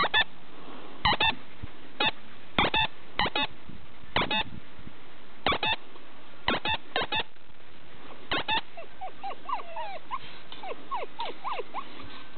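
Siberian husky puppies yipping: about a dozen short, sharp yips, often two or three in quick succession, then from about nine seconds in a string of fainter high whines and whimpers.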